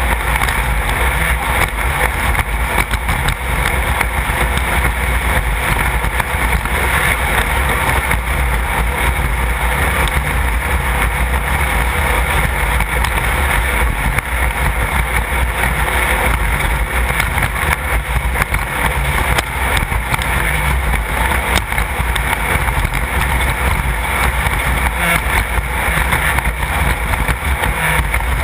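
A 1600-class off-road race car running steadily at speed: continuous engine noise mixed with wind noise, with no let-up or clear change in revs.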